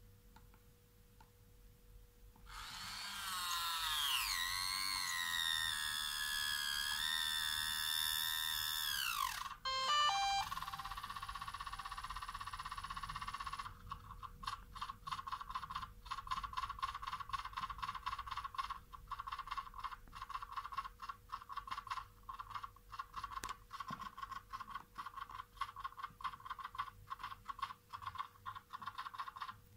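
DJI Mavic 2 drone powering up. A few seconds in comes a wavering electronic whine, then a quick run of stepped beeps and a steady high tone. From about halfway on there is a fast, irregular clicking crackle: the problem noise the owner wants heard.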